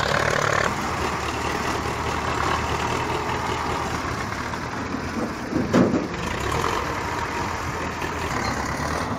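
Diesel tractor engine running steadily while hauling a trolley heaped with soil, with one brief loud thump about six seconds in.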